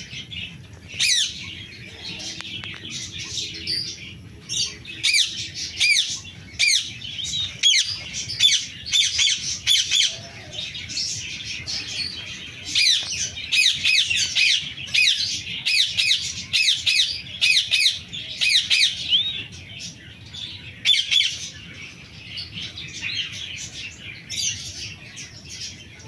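Indian ringneck parakeet calling: runs of rapid, high-pitched squawks with short breaks between them.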